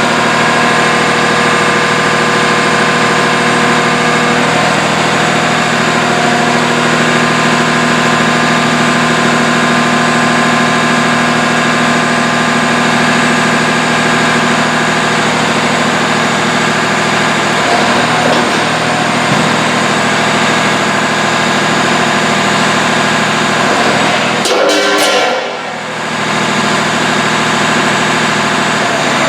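An engine running steadily at a constant speed, with a brief dip in level about 25 seconds in.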